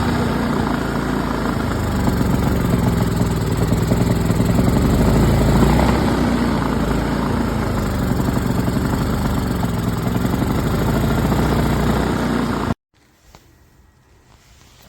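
maXpeedingrods 4000W dual-fuel inverter generator running steadily, its engine pitch wavering a little. It cuts off abruptly near the end, leaving only faint low noise with a few soft clicks.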